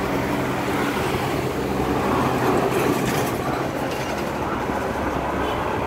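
Road traffic passing: a heavy truck's engine running as it goes by with scooters and a car. A steady mix of engine hum and tyre noise.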